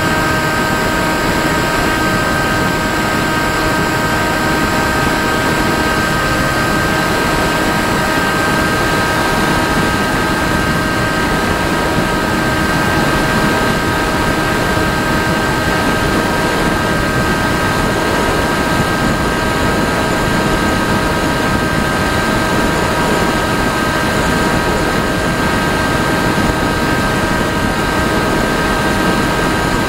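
Electric motor and propeller of an FPV model aircraft running at a steady throttle, heard from its onboard camera: several fixed tones that hold the same pitch throughout, over a loud, even rush of air.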